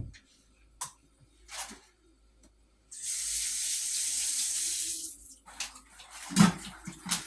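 Kitchen tap running for about two seconds, then shut off, followed by a few light knocks.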